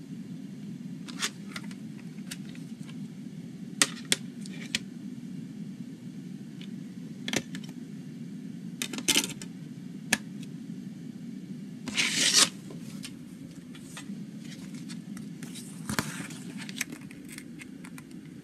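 Plastic CD jewel case being handled: sharp clicks and snaps of the case a few seconds apart, and a louder papery scrape and rustle about twelve seconds in as the paper booklet is handled, over a steady low hum.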